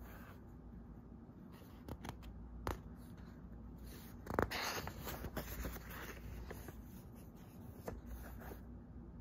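Paper pages of a paperback book being turned by hand: a few light paper ticks, then a louder papery rustle about four seconds in as a page is flipped over, followed by softer crackles.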